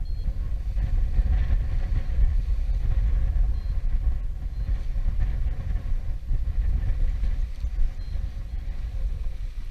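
Strong wind buffeting the microphone: a loud, gusting low rumble that comes in suddenly at the start.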